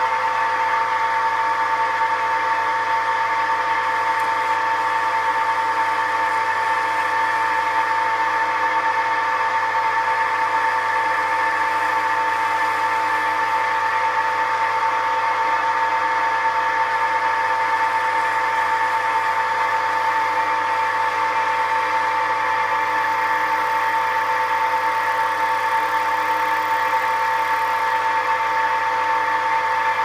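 Record CL1 wood lathe running steadily with a teak workpiece spinning in the chuck, its motor and drive giving an even hum with a steady high whine.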